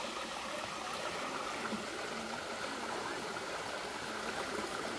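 Shallow stream running steadily over sand and rocks, a strong, even rush of water, mixed with the splashing of children wading and playing in it.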